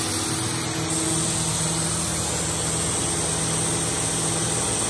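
Large electric shop air compressor running steadily: a constant motor hum with a hiss over it.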